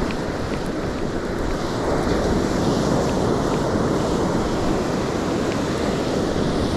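Ocean surf washing ashore, with wind blowing across the microphone: a steady rush of noise.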